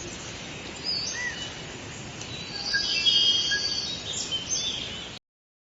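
Birds chirping with short whistled calls and trills over a steady background hiss, cutting off suddenly shortly before the end.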